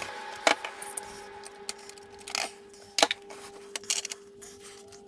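Scattered clicks, clinks and light scrapes of an aluminium spirit level and a metal wall bracket being handled and set against the wall, over a faint steady tone.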